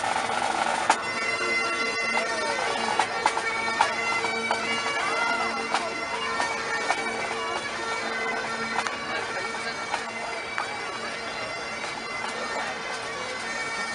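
Bagpipes playing a tune over their steady drones, with scattered short clicks.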